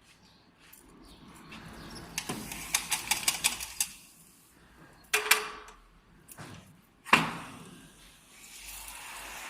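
A quick run of about ten sharp clicks, then two separate knocks, the first with a brief ringing tone and the second the loudest.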